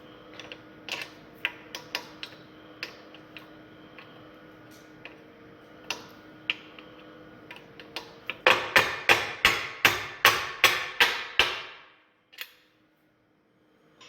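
Scattered light metal clicks and taps, then a quick run of about a dozen hammer blows on steel, roughly four a second: driving a pin out of a tractor loader's tilt-cylinder mount.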